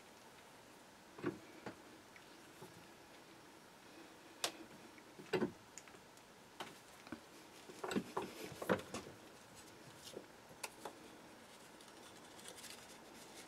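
Sparse light clicks and knocks from a bench vise and metal parts being handled as a brass bearing is pressed into an aluminium support column between aluminium angle jaw covers, with a quick cluster of knocks about eight seconds in.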